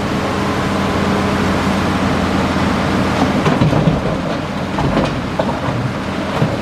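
Hitachi Zaxis 5G excavator's diesel engine running steadily under load, with a stretch of clattering knocks about three to five seconds in as stone is handled in the loading work.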